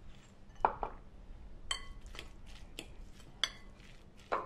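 A metal fork mixing minced meat in a glass bowl. It clinks against the glass about five times, some strikes ringing briefly.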